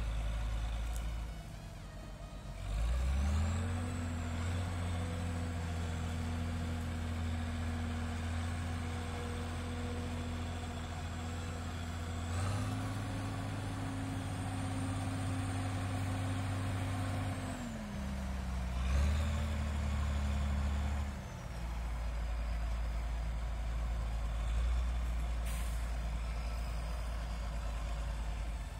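Large farm tractor's diesel engine running steadily, its revs stepping up about three seconds in and again near the middle, then dipping, briefly picking up and dropping back low near the end. A faint high whine rises and falls with the revs.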